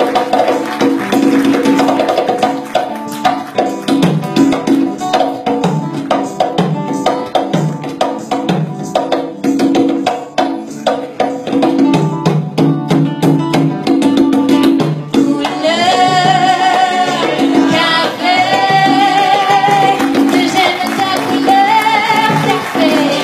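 Live band playing a Latin-style groove on congas, hand percussion and guitar; a woman's singing voice comes in about two-thirds of the way through.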